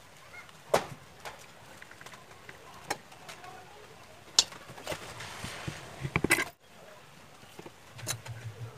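Workbench handling noise: scattered clicks and knocks of the plastic compressor housing being moved and worked on, with a quick run of knocks about six seconds in that cuts off suddenly.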